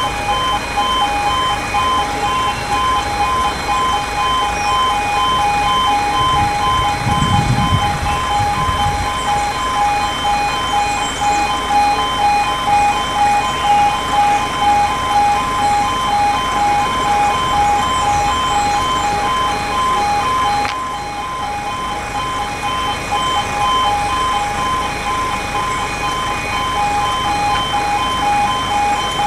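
Railway level crossing warning alarm sounding continuously: an electronic two-tone alarm pulsing rapidly, with the barriers down awaiting a train. A brief low rumble comes about seven seconds in.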